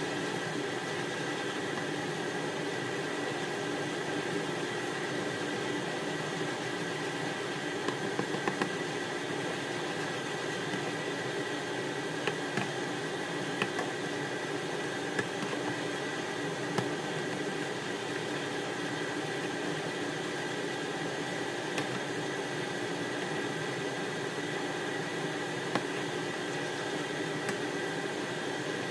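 Sauce simmering in a nonstick pan on an induction hob: a steady hiss with a steady hum from the hob. A few light taps of a spatula against the pan come through, mostly in the first half.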